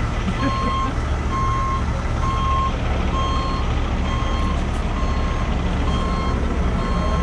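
A heavy truck's reversing alarm beeping steadily, a little faster than once a second, over the low, steady running of a diesel engine.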